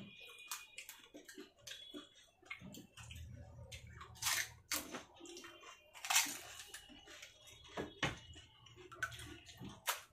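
Fuchka being handled and eaten: crisp puffed shells crunching and spiced water splashing and slurping in short noisy bursts with scattered clicks, the loudest bursts about four and six seconds in.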